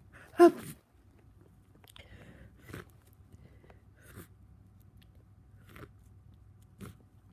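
A person with a head cold sneezing once, sharp and loud, about half a second in. Several faint short breath and nose sounds follow.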